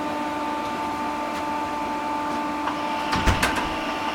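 Steady electrical hum with a constant high whine from running equipment in a radio repeater room. A few sharp clicks and a low clunk come about three seconds in.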